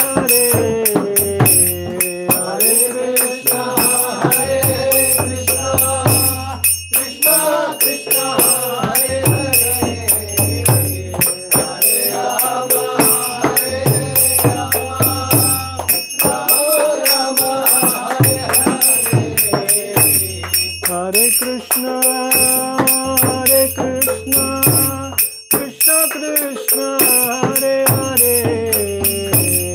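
Devotional singing with accompaniment and a fast, steady metallic jingling keeping time.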